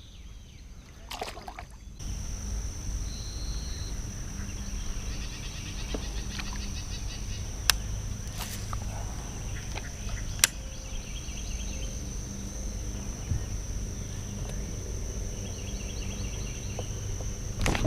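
Outdoor ambience with a steady high-pitched drone and a low rumble that come in about two seconds in, faint chirps, and two sharp clicks midway.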